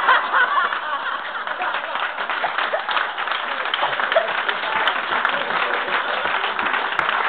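Small audience applauding, a mix of scattered hand claps and crowd chatter.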